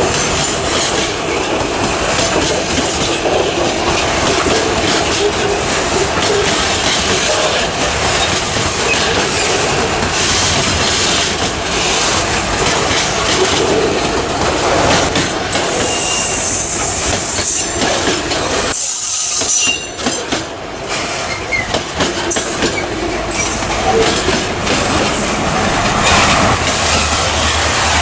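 Freight train wagons rolling past close by: a steady clatter and rumble of steel wheels on the rails, with brief high wheel squeals around the middle.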